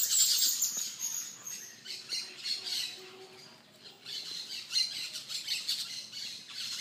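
Birds chirping and squawking, a busy high-pitched chatter that drops quieter for a moment around the middle before picking up again.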